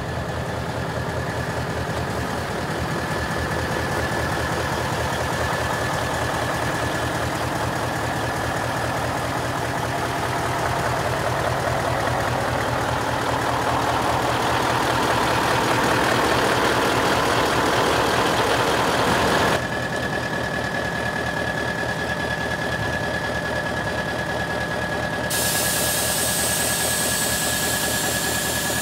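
Scania R142's 14-litre V8 diesel idling with a fast, even low pulsing and a faint steady whine. It grows louder for a few seconds past the middle, then drops suddenly about two-thirds of the way in.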